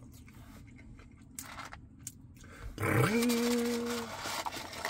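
Faint chewing and small mouth clicks from a man eating French fries. Then a man's hummed "mmm" rises and is held for about a second, with the paper fries carton rustling as a hand reaches into it.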